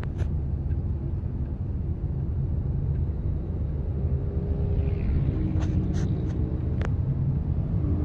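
Steady low rumble of engine and road noise inside the cabin of a Suzuki Ertiga driving slowly. A few sharp clicks come between about five and a half and seven seconds in.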